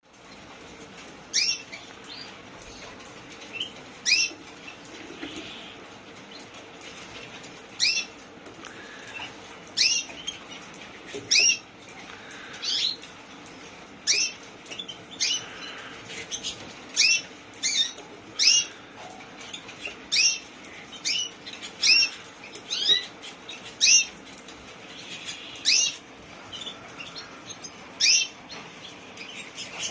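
Yellow agate topaz canary giving short, sharp call notes, each a quick downward sweep in pitch, repeated about twenty times at irregular intervals of one to two seconds.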